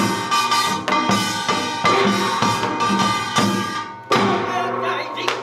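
Korean pungmul percussion: janggu hourglass drums beating a driving rhythm, with a metallic gong ringing over it. About four seconds in the playing thins briefly, then comes back in with a hard stroke.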